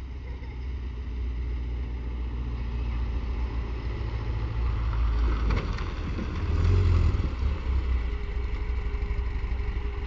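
Porsche 914's air-cooled 1911 cc Type 4 flat-four engine running as the car drives up. It grows louder as it comes close, loudest about seven seconds in, then runs lower and steadier as the car slows and pulls in beside the listener.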